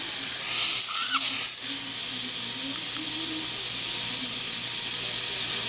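Dental suction tip drawing air and fluid from the mouth: a steady, high hiss with a brief warbling slurp about a second in, a little quieter after about two seconds.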